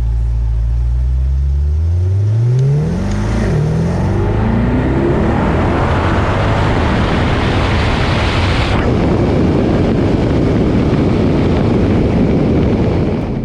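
Car engine running with a steady low note, then revving up, its pitch climbing, and pulling hard under heavy throttle with a loud, rough roar.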